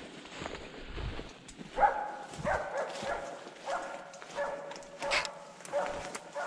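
Blood-tracking dog barking in a steady series, a little under two barks a second, starting about two seconds in.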